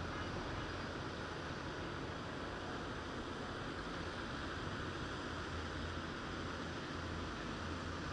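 Backhoe loader's diesel engine running steadily, with a constant low hum under an even noisy hiss.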